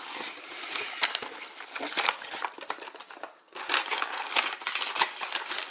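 A cardboard box lid being lifted open and the tissue-paper wrapping inside crinkling and rustling under the hands, with a brief lull about three and a half seconds in.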